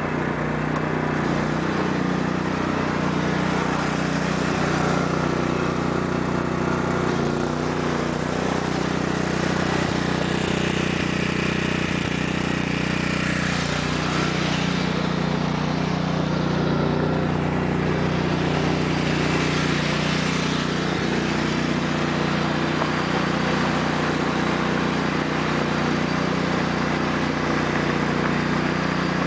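Sears Craftsman lawn tractor's 14 hp Kohler OHV single-cylinder engine running steadily as the tractor drives about on ice and frozen hail. About a third of the way in it passes close by and grows hissier for several seconds, with its rear tires slipping on the ice.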